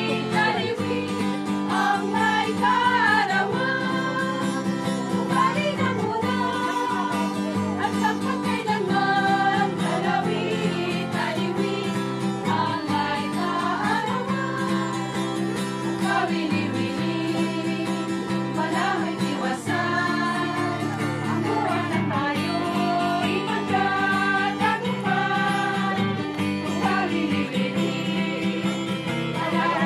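A group of women singing together in unison to a strummed acoustic guitar: a traditional Marinduque putong (crowning) song.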